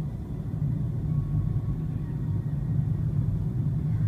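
Steady low rumble of a moving car, heard from inside the cabin.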